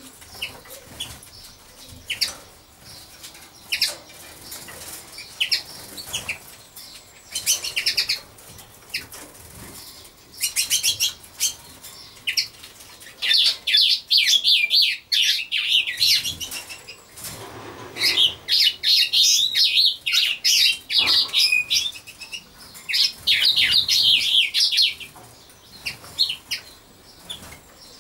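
Small birds chirping, scattered single notes at first, then quick chattering runs several times in the second half.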